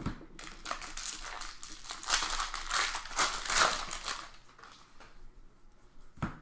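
Plastic wrapper of a baseball card pack crinkling as it is torn open and handled, loudest about two to four seconds in. A sharp click comes at the start and another near the end.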